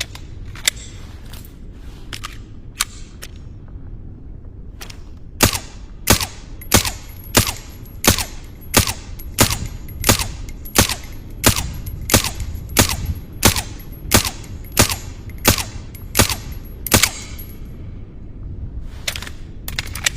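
Suppressed 9 mm pistol sound effect: a few scattered shots, then a long, steady string of about eighteen shots at roughly three every two seconds, and two more near the end. A faint high-pitched whine runs through most of the string.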